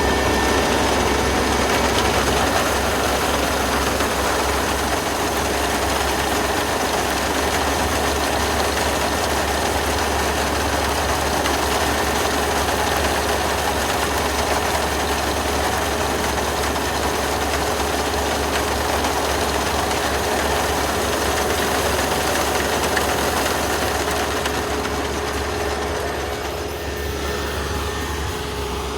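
Kubota rice combine harvester running steadily, its engine and threshing machinery making a dense, even mechanical noise with a low hum. It eases off slightly near the end.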